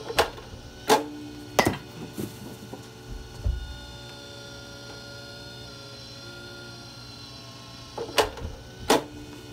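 Sharp knocks from batting practice with a spring-loaded pitching machine: the machine firing and a bat hitting the ball. There are three knocks close together near the start, a dull thud about three and a half seconds in, and three more knocks near the end as the next pitch comes.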